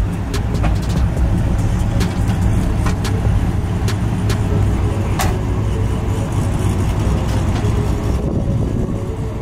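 Drag race car's engine idling, a steady low rumble, with a few sharp clicks over it.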